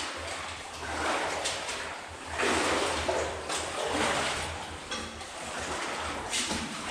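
Wader-clad footsteps wading through shallow water and sucking mud, sloshing and splashing with each step, about one stride a second.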